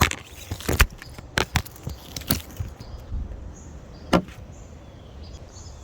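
Sharp plastic clicks and knocks from a windshield chip repair kit's syringe and applicator being handled and pushed down to pressurize the resin in the chip, a handful of irregular clicks with one louder knock near the end.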